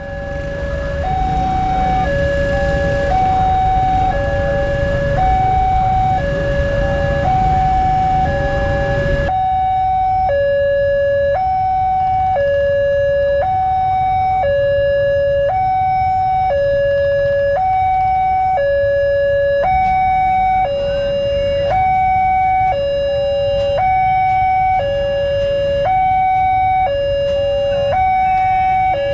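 Railway level-crossing warning bell sounding its electronic two-tone alarm, a higher and a lower tone alternating steadily: the crossing is closed for an approaching train.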